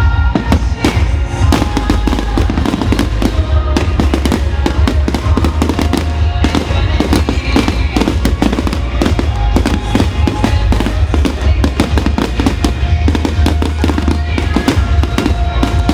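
Fireworks display going off in rapid bangs and dense crackling bursts, with music playing alongside.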